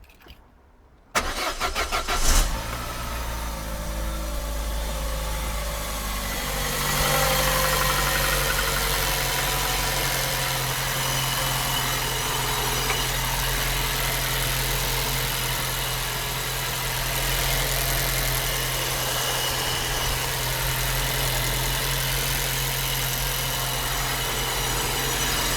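Opel Corsa's 1.2 X12XE three-cylinder petrol engine cranked by the starter about a second in, catching and then idling steadily, a little louder from about seven seconds in. A strange noise rides on the idle, which by the sound of it comes from the clutch.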